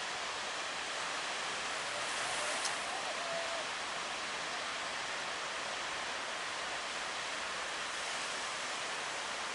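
Steady rushing noise of wind and sea water streaming past a boat running through rough waves, with a faint voice and a single sharp tick a little over two seconds in.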